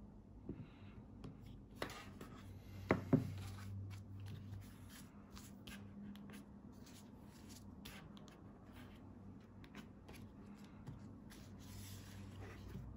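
A folded tissue rubbing and wiping over a phone's glass screen protector, a soft, steady scrubbing. About three seconds in, two sharp clicks come close together.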